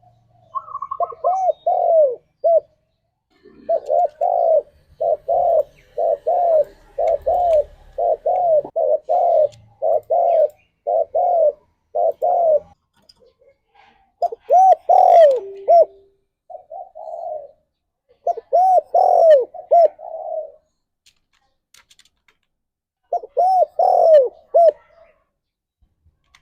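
Spotted dove (tekukur) cooing. Phrases of rounded, repeated coo notes come in a long run of about nine seconds, then several shorter bursts with pauses between them.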